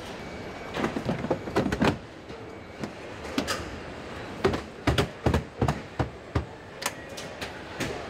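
Car assembly-line machinery: a steady hum with a series of irregular sharp clanks and clicks, starting about a second in.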